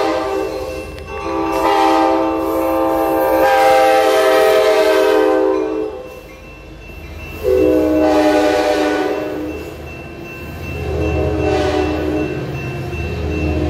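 Sound Transit Sounder commuter train sounding its horn for a grade crossing: a short blast, then a long blast, and after a short pause another blast. Underneath, the rumble of the bilevel coaches rolling past grows in the second half.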